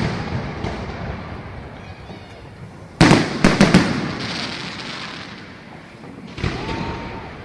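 Aerial fireworks bursting: a loud bang about three seconds in, quickly followed by three sharper cracks, each trailing off in a long rumbling echo, with another smaller burst near the end.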